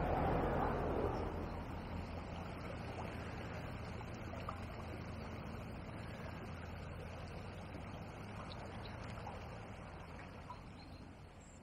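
Faint outdoor ambience: a low rumble with a steady hum, loudest at the start and fading away over the first few seconds, then a faint steady hiss with a few small clicks.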